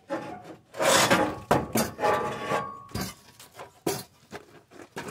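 Rusty steel scraping and clanking as the leveling frame on the back of a disc harrow is dragged off: a couple of rough scrapes and several sharp metal knocks.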